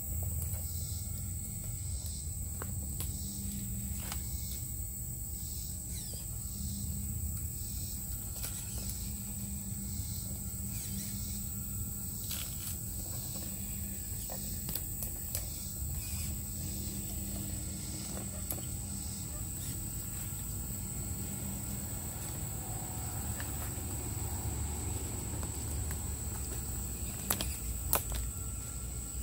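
RC scale crawler truck creeping over creek rocks, its electric motor and drivetrain giving a low, uneven hum that swells and eases with the throttle. A steady high insect trill runs underneath, and a few sharp clicks come near the end.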